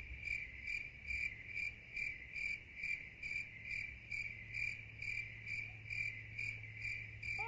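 Insect chirping like a cricket: short high chirps repeating evenly about twice a second, over a faint low hum.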